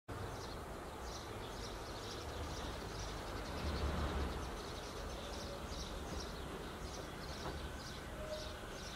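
Outdoor ambience: a steady low rumble that swells briefly about four seconds in, with a small bird chirping over and over.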